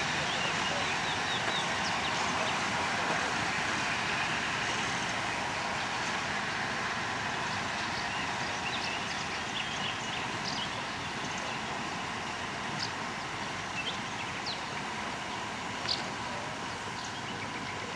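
TU2 narrow-gauge diesel locomotive running as it shunts a train of wagons and coaches, the sound slowly fading as the train draws away. A few short high squeaks sound over it in the second half.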